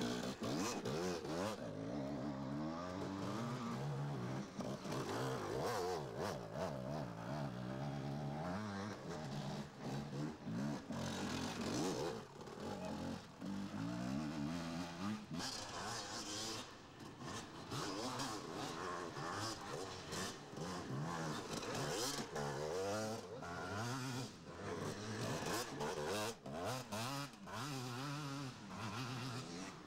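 Several enduro dirt-bike engines revving hard and easing off as the bikes pass one after another, the engine pitch rising and falling with the throttle.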